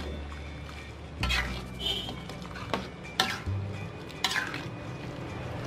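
Metal spatula stirring and scraping chicken feet and carrots around a metal pan, several scrapes about a second apart.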